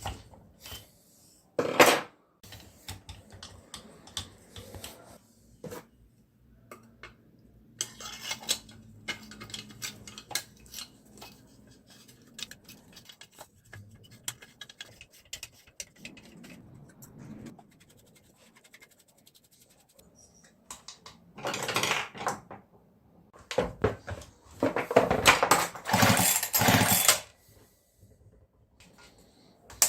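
Irregular clicks and metallic clatter of tools and parts being handled during work on a chainsaw. In the second half there are several louder, rougher bursts of about a second each.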